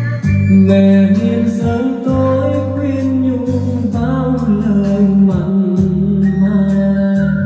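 A man singing a slow Vietnamese ballad over a karaoke backing track with guitar.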